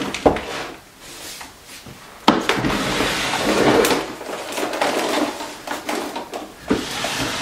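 Plastic storage containers being handled in a bathroom vanity cabinet: a small plastic drawer unit is knocked into place and a plastic basket of toiletries is pulled out across the shelf. There are sharp knocks, one about two seconds in, followed by a few seconds of clattering and rustling of bottles and packages.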